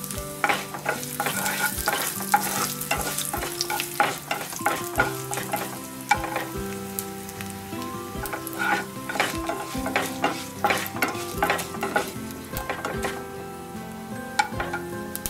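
Mustard seeds, urad dal and dried red chillies sizzling in hot oil, with many small crackling pops, while a wooden spatula stirs and scrapes the pan.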